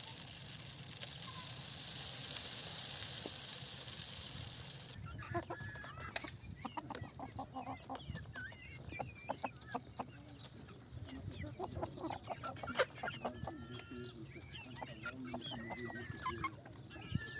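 Domestic chickens clucking softly, with many short calls and scattered sharp taps. A steady hiss runs through the first five seconds and cuts off suddenly.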